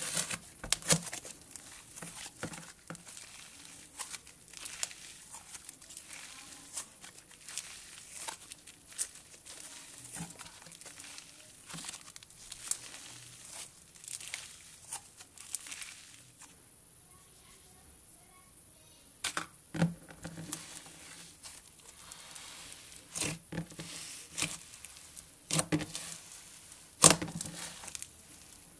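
Cloud slime, a glue slime thickened with expanding instant snow, being kneaded and pulled apart by hand, giving a dense run of small crackles and soft tearing sounds. There is a quiet spell of a few seconds past the middle, then several louder snaps as the slime is stretched and squeezed again.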